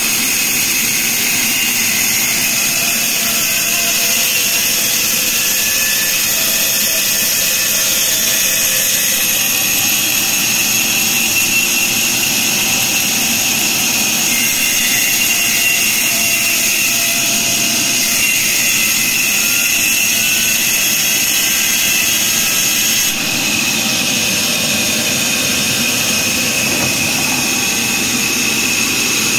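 Large vertical band saw running and ripping a log lengthwise: a loud, steady machine noise with a high whine from the blade. The level dips slightly and the tone changes late on.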